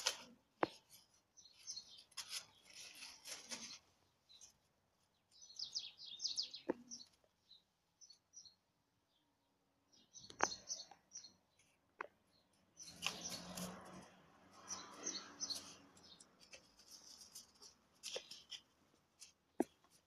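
Faint, intermittent chirping of small birds, with scattered sharp clicks and a longer stretch of rustling about two-thirds of the way through.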